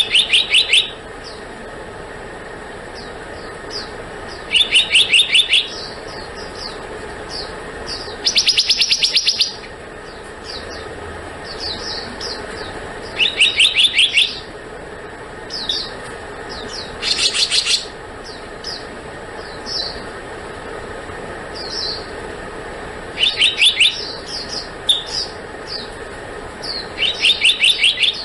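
Black-naped monarch calling: rapid runs of about eight sharp, high notes, each run lasting about a second and coming every few seconds, with short single high notes between them.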